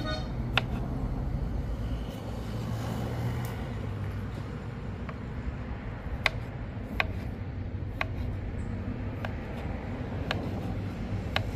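Kitchen knife cutting potatoes on a wooden cutting board: a handful of sharp taps at uneven spacing, mostly in the second half. Under it, a steady low vehicle engine rumble.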